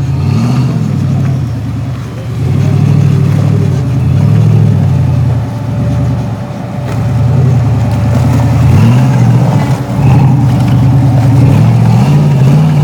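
V8 engine of an off-road Jeep, revved up and eased off again and again while crawling over the course, its pitch rising and falling several times.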